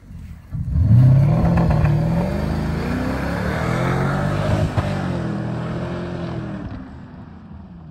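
Porsche Cayenne S 4.5-litre V8 accelerating away on a dirt track. The engine comes in suddenly, its revs rising and falling a few times, then fades as the car moves off.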